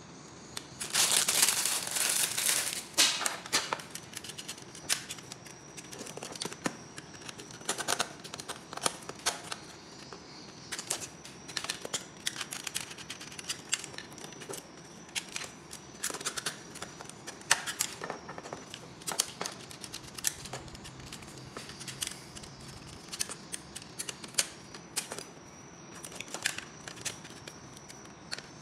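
Hands working electrical wires into the terminals of plastic wall sockets: scattered clicks, taps and rustling as the wires and socket plates are handled, with a loud rustle about a second in.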